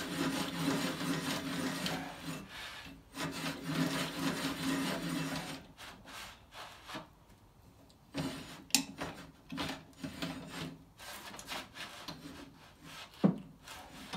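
Height-adjustment handwheel of a Grizzly G0458Z drum sander being cranked to set the drum height, with a rough rubbing, rasping sound. About five seconds in it turns quieter, with scattered light clicks and knocks and a sharp click a little past the middle and another near the end.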